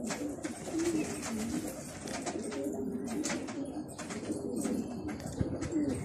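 Domestic pigeons cooing, low warbling calls overlapping one another, with scattered light clicks among them.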